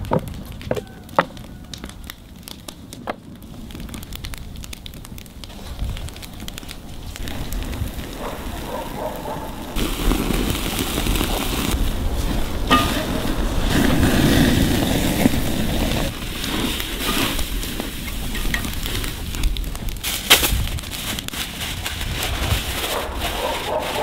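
Wood fire crackling under a grill grate, with a few sharp knocks in the first seconds. From about ten seconds in, a tomahawk ribeye sizzles loudly on the grate over the flames, with scattered pops and crackles.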